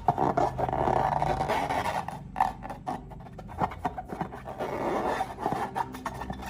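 Slime being worked by hand, with irregular sticky crackles and clicks throughout.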